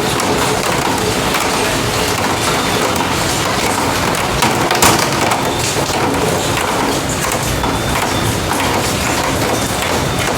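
Steady heavy rain falling, a dense even patter, with a couple of brief louder taps just under halfway through.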